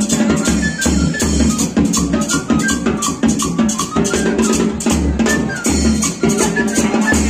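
Upbeat festive music with a fast steady beat: drums and shaker-like percussion over a pulsing bass line and short melodic notes.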